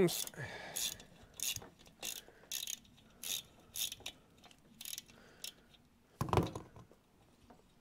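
Hand socket ratchet clicking in short back-strokes, about every half second, as a spring-loaded rocker-gear bolt is backed out of a Citroën 2CV cylinder head. A duller knock comes a little after six seconds.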